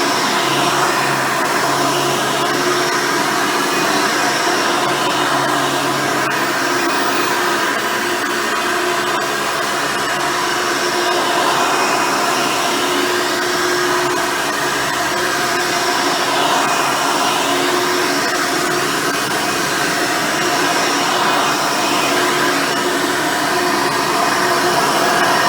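Hoover Elite upright vacuum cleaner running steadily on its original 7-amp motor and 7-blade fan: a steady whine over a rush of air.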